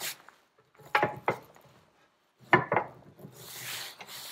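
Steel brake cross-shaft lever and shaft being turned round in a bench vice, metal on metal: a pair of sharp knocks about a second in, two more past two and a half seconds, then a longer scraping rub near the end.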